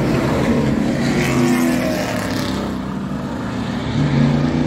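Street stock race cars' engines running at speed as the field laps the oval, several engines overlapping, the sound swelling as a car passes close about four seconds in.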